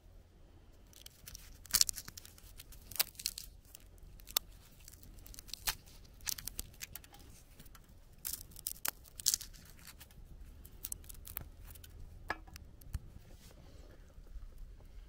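Brittle shell of a roasted chestnut being cracked and peeled off by hand: a scatter of sharp crackles and snaps, loudest about two seconds in and again around nine seconds.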